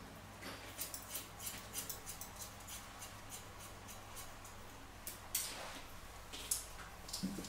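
Hairdressing scissors snipping through dry hair: a quick run of snips, about four a second, in the first few seconds, then a few louder, spaced snips in the second half.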